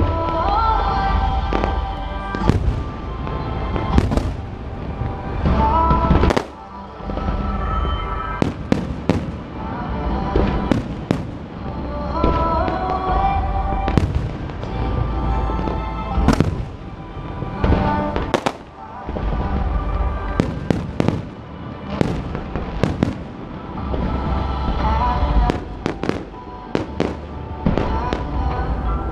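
A fireworks display going off: many sharp bangs and cracks in quick, irregular succession, over loud music with a heavy bass beat.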